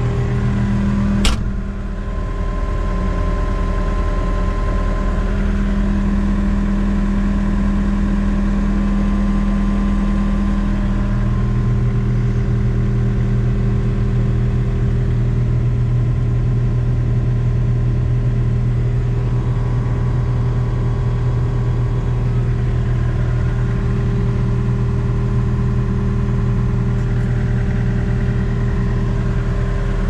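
John Deere 318G skid steer's diesel engine running steadily at idle, with a single sharp click a little over a second in and a change in its low tone around ten seconds in.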